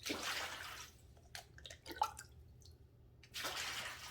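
Water being poured into the basin of a small indoor waterfall fountain: two pours, one at the start and one about three and a half seconds in, with scattered drips between.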